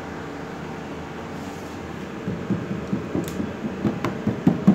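Steady faint room hum, then from about halfway a run of soft, irregular low knocks as a hand taps and handles the front of a 32-inch LED TV.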